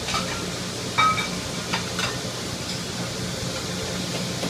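Restaurant kitchen line: a steady low hum and faint frying sizzle, with a few sharp metallic clinks of pans and utensils. The loudest clink comes about a second in and rings briefly.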